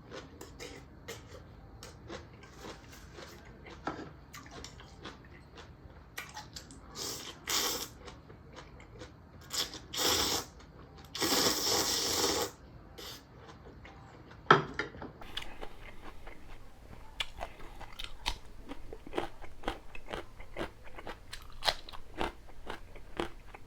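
Close-miked eating of spicy ramyun: wet mouth clicks, three long slurps of noodles in the middle, then steady crunchy chewing, about two to three bites a second, through the second half.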